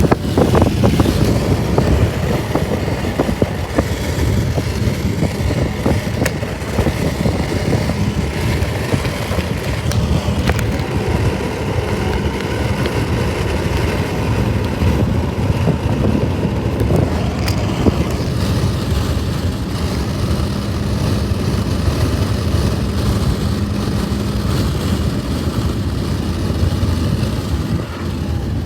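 Steady low rumble of a moving road vehicle, with engine and road noise and a faint constant hum.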